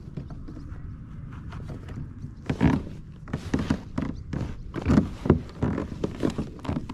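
Irregular hollow knocks and thumps on a plastic sit-on-top kayak as the angler shifts and twists in his seat, starting about two and a half seconds in over a low steady hiss.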